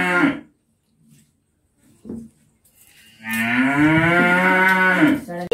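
A cow mooing: the tail of one long moo fades out just after the start, and a second long, loud moo follows about three seconds in, lasting around two seconds. A brief faint sound falls in the quiet between the calls.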